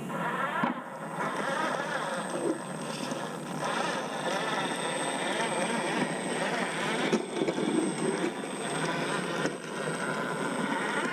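RC4WD 1/10-scale Desert Runner truck driving off-road, its electric motor and drivetrain running with the level rising and falling as the throttle changes.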